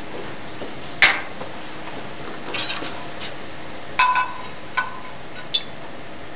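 A metal spoon and glassware clinking and knocking as they are handled. There is a sharp knock about a second in, then a few soft clicks, then a ringing clink about four seconds in, followed by two lighter clinks, all over a steady hiss.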